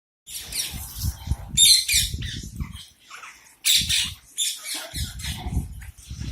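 Parrots squawking in a rapid, overlapping run of harsh, high-pitched calls, with a low rumble underneath at times.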